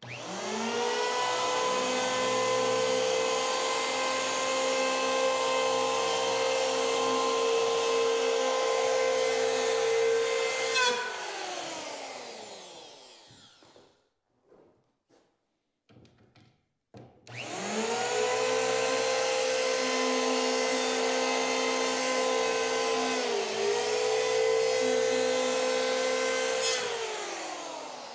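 Electric wood planer run twice, each time spinning up, running with a steady high whine for about ten seconds as it shaves a jamb extension down toward marked lines, then coasting down with falling pitch. A few short knocks come between the runs, and partway through the second run the pitch dips briefly as the cutter takes load.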